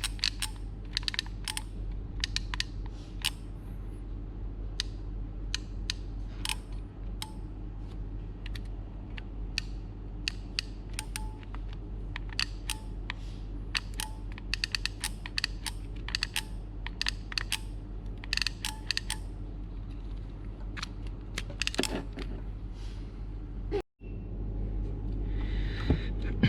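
Irregular sharp clicks and taps, dozens of them, from handling and working on an automatic solder-feed soldering gun, over a steady low hum.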